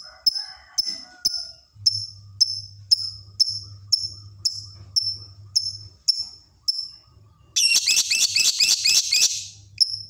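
Lovebird calling: a steady series of sharp, high-pitched chirps about two a second, then near the end a loud, rapid chattering run lasting about two seconds, and one more chirp.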